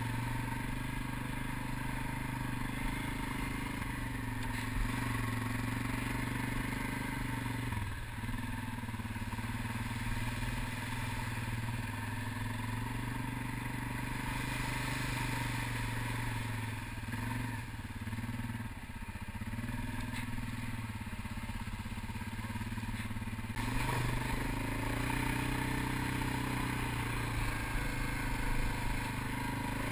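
ATV engine running under steady throttle while the quad is ridden through shallow river water and over sand, its pitch dipping briefly a few times as the throttle eases off.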